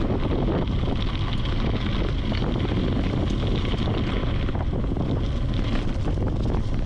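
Wind buffeting the microphone and tyres rolling over a dirt and gravel trail as a mountain bike is ridden along at speed, with many small rattles and crackles from the bike and trail surface.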